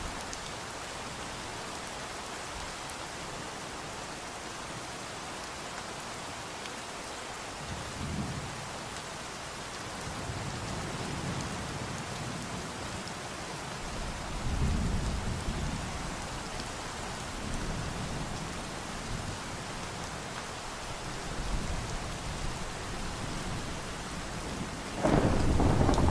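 Steady rain falling, with thunder rolling in low rumbles from about eight seconds in and a sudden, louder peal near the end.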